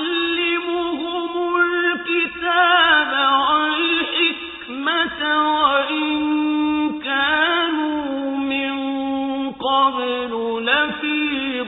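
A single voice chanting in a melismatic style, with long held notes and wavering ornaments, starting abruptly.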